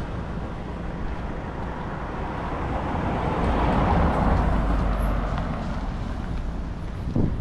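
A vehicle passing by: a noisy rumble that grows louder to a peak about halfway through and then fades away.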